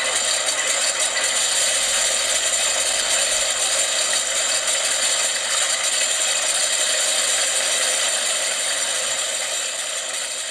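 Electronic engine sound from a scale model's sound box, a simulated aircraft engine running in step with the model's motor-driven propellers, played through a small speaker. It runs steadily, then begins to fade near the end.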